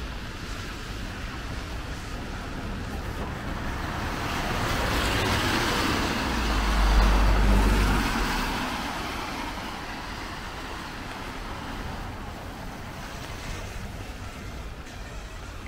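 A motor vehicle passing on a wet road: the hiss of tyres on wet tarmac swells to a peak about halfway through, with a deep engine rumble as it goes by, then fades back into steady traffic noise.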